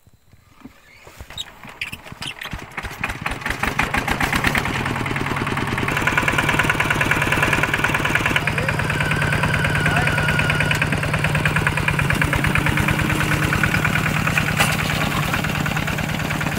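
Single-cylinder diesel engine of a two-wheel walking tractor starting up. Separate firing strokes begin about a second in and quicken over the next few seconds, then the engine runs steadily.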